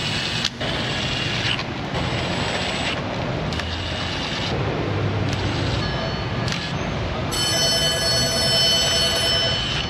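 Power ratchet whirring in several short runs as oil pan bolts are driven in, with a longer high-pitched whir near the end.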